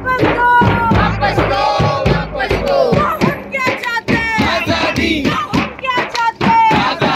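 Crowd of protesters chanting slogans in unison, with a drum beating along.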